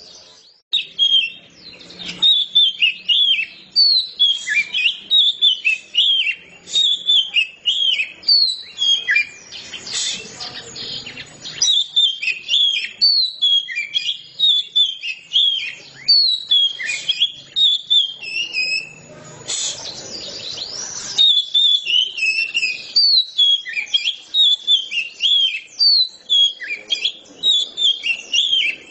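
Oriental magpie-robin singing in full, continuous song: a fast, nearly unbroken run of varied high whistles and chattering phrases.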